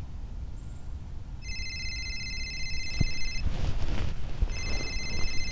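Mobile phone ringing twice, each ring a trilling tone about two seconds long with about a second between them. A rustle comes between the rings, and wind rumbles on the microphone underneath.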